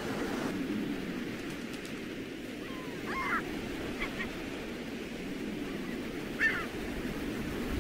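Steady low rush of wind and surf, with three short bird calls about three, four and six and a half seconds in, the last the loudest.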